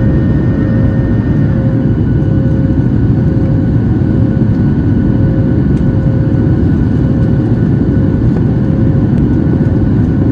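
Boeing 737 MAX 8's CFM LEAP-1B turbofan engines running at high power: a loud, steady roar with a deep rumble and a faint steady hum above it.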